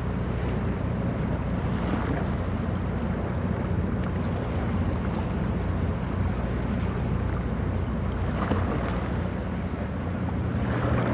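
Diesel engine of a small coastal general cargo ship under way, a steady low drone, over wind and water noise.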